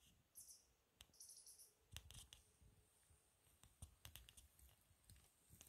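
Near silence, with scattered faint clicks and brief soft rustles.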